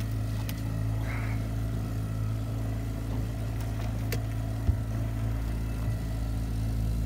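Boat's outboard motor running steadily at trolling speed, a constant low drone. A single sharp knock about two-thirds of the way through.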